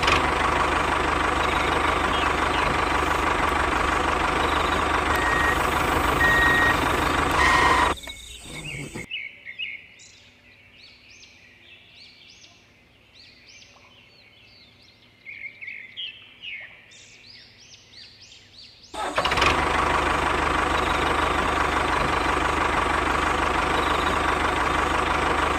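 The small motor of a DIY toy tractor runs steadily, stops about eight seconds in, and starts again abruptly about ten seconds later. While it is off, birds chirp repeatedly.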